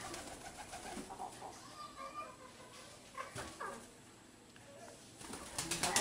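Domestic pigeons cooing softly, with a quick run of sharp clicks near the end.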